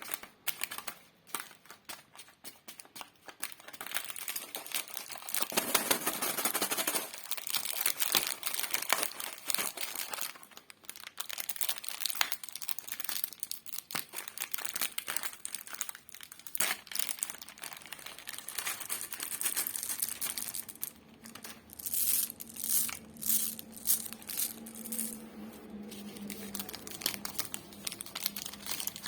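Plastic lollipop wrappers crinkling and tearing as they are handled and pulled open, in dense irregular crackles with sharper bursts near the end.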